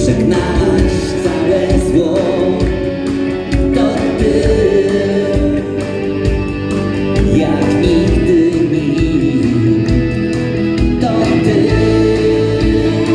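Live band performing a song: lead vocal with backing singers over electric guitar, bass, drums and keyboard.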